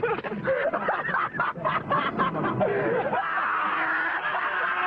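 Young men snickering and laughing.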